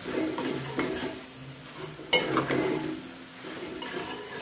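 Steel ladle stirring and scraping diced banda tuber through frying masala in a stainless steel kadhai, over a sizzle. Several sharp metal scrapes, the loudest about two seconds in.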